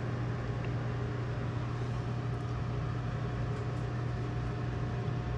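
Steady low machine hum in a workshop, unchanging throughout, with no distinct knocks or clicks.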